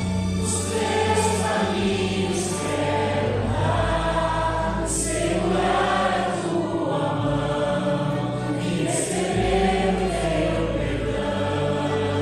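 A group of worship singers sings a Portuguese hymn into microphones over an accompaniment with long held bass notes.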